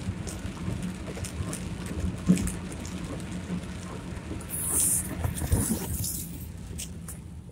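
Rain noise with irregular knocks and rubbing from the phone being handled, over a low steady hum. A brief burst of hiss comes about two-thirds of the way in.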